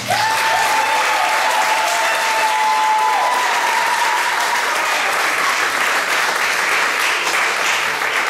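Audience applauding and cheering at the end of a dance. Two long, held high notes ride over the clapping for the first few seconds.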